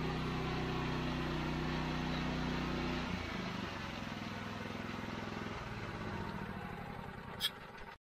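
Gasoline engine of a walk-behind power trowel running steadily while troweling a fresh concrete slab. Its note drops about three seconds in and shifts again a little past the middle. There is one short click near the end.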